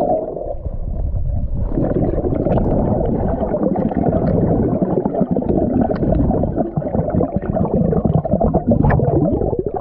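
Muffled underwater rumble and gurgling of water and air bubbles, with bubbles crackling against a camera held underwater.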